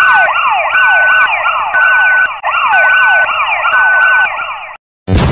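Electronic siren sound effect: rapid falling yelps, about four a second, over a steady beep that sounds about once a second. It cuts off suddenly near the end and is followed by a short, loud boom.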